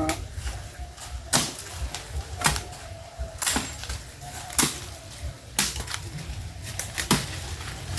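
Axe blows chopping into wood: six sharp strikes at about one a second, with a slightly longer gap before the last.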